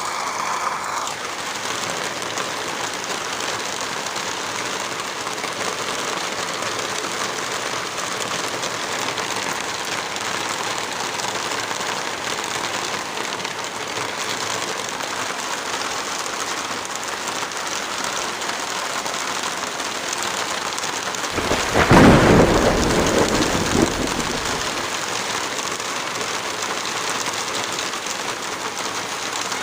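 Steady rain falling, with one clap of thunder about two-thirds of the way through that rumbles for a few seconds and then fades back under the rain.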